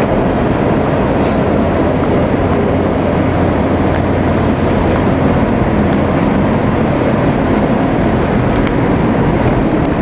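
SEPTA Market-Frankford Line elevated train running at speed, a loud steady rumble of wheels on rail heard from inside the car.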